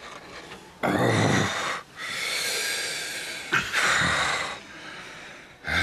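A man's strained grunt about a second in, followed by several heavy, wheezy breaths out: the effort of a hard physiotherapy exercise.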